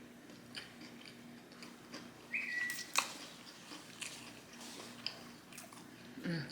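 Close-miked chewing and biting of food, with small wet mouth clicks throughout. A brief high whistle-like tone sounds a little after two seconds in, followed by a sharp click, the loudest sound.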